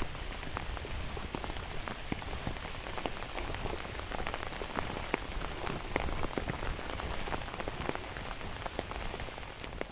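Steady rain, with many separate drops tapping sharply close by at an irregular pace.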